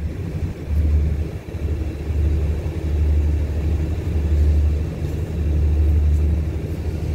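Low, uneven rumble of a diesel-electric locomotive at the station platform, swelling and dipping every second or so.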